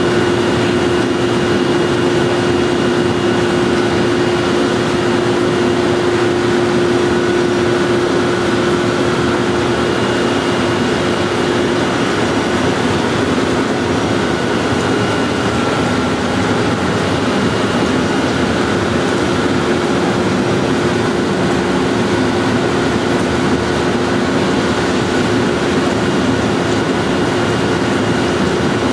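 Whirlpool hydrotherapy bath running: a steady rush of churning, bubbling water with a steady hum under it.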